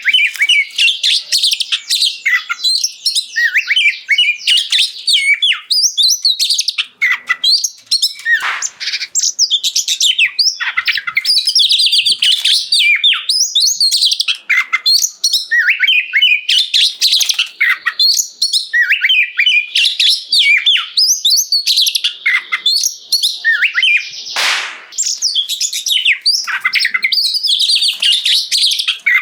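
Oriental magpie-robin (kacer) in full loud song: a fast, varied, almost unbroken run of whistles, trills and chirps, with a short harsh note late on.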